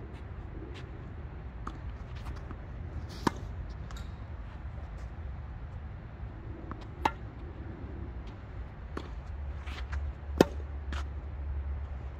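Tennis ball struck by rackets during a singles rally: three sharp pops of the ball off the strings a few seconds apart, the last and loudest near the end, with fainter hits and bounces between. A low steady rumble sits underneath and grows slightly near the end.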